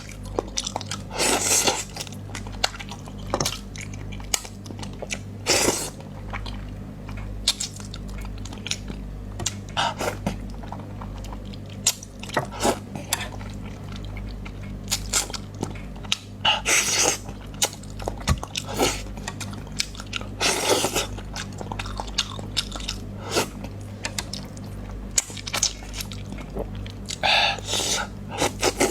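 Close-miked eating: chewing and biting, with frequent sharp wet mouth clicks and several longer noisy bursts, over a steady low hum.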